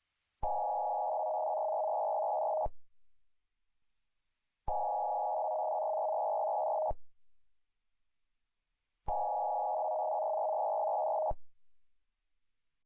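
Three bursts of Emergency Alert System data tones, each a little over two seconds long with about two seconds of silence between them.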